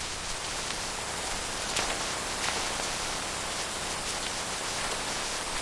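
Steady rain falling, an even hiss with scattered single drops tapping.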